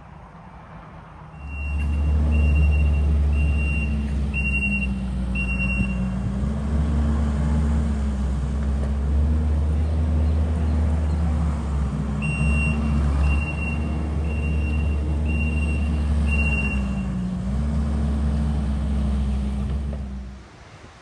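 Truck engine running while it backs up, its reversing alarm sounding in evenly spaced high beeps, about one a second, in two runs. The engine comes in loud about a second and a half in, its pitch rising and falling a little, and drops away near the end.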